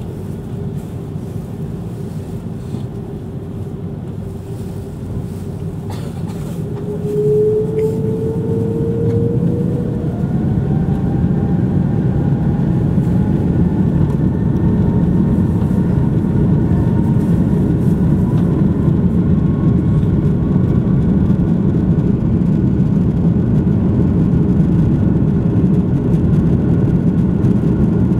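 An Airbus A330-300's Rolls-Royce Trent 772 turbofans heard from inside the cabin, spooling up for the takeoff roll. A steady rumble is joined about seven seconds in by a rising whine as thrust comes up, and the roar grows louder and holds as the aircraft accelerates down the runway.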